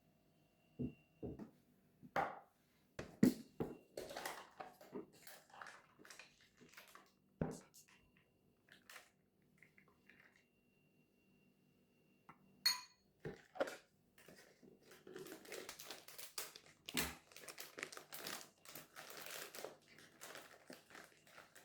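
Household handling sounds: crinkling and rustling with scattered light knocks and a clink, the rustling growing denser over the last several seconds.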